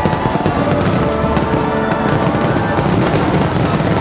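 Fireworks display: rapid crackling and popping of many shell bursts in quick succession, over loud accompanying music.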